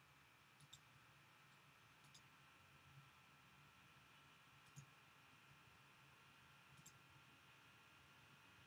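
Near silence: faint room tone with a handful of brief, faint clicks.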